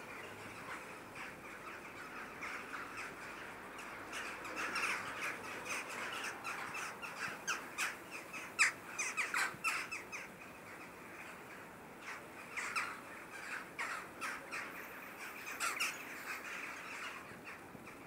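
Birds calling: many short, quick calls over a steady faint background chatter, busiest about halfway through.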